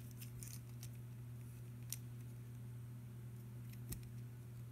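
A few faint, sharp clicks of plastic LEGO pieces as minifigures are handled and fitted onto a small toy buggy, the clearest about two seconds in and again near four seconds, over a steady low hum.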